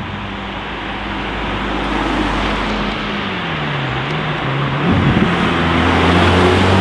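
Mercedes-AMG GT Black Series' twin-turbo V8 running, its note dipping a few seconds in, then getting louder and rising about five seconds in as the car accelerates.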